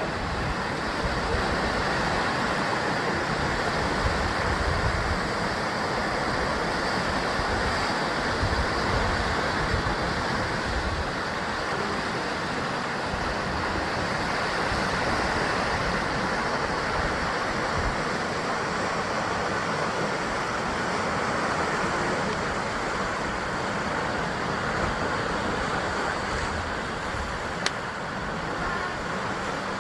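Sea surf washing and breaking against a rocky basalt shore: a continuous hiss of water over a low rumble that swells and eases. There is a single short click near the end.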